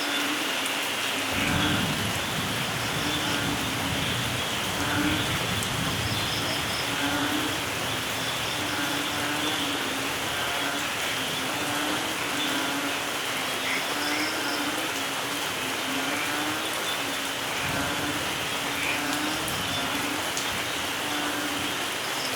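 Steady rain falling in a forest, with low rolling thunder that starts about a second and a half in and dies away, and a second roll later on. A low call repeats about once a second over the rain.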